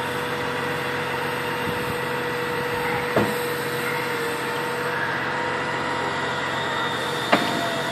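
Utility bucket truck's engine idling steadily, with a steady tone running through it; two short knocks about three and seven seconds in.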